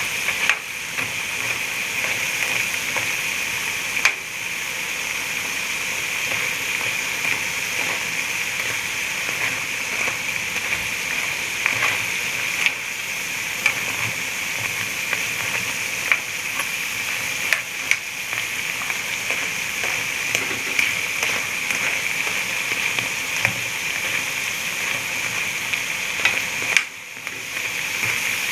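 Balah el sham (piped choux-dough fritters) deep-frying in hot oil: a steady sizzle, with scattered sharp clicks of a utensil against the pan as they are turned. The sizzle dips briefly near the end.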